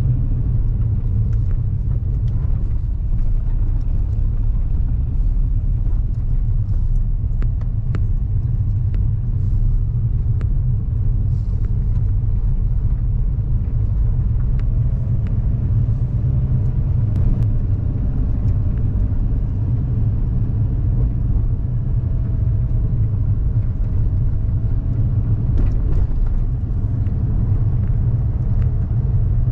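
Car driving slowly on a rough village lane, heard from inside the cabin: a steady low rumble of engine and tyres, with scattered faint ticks and rattles.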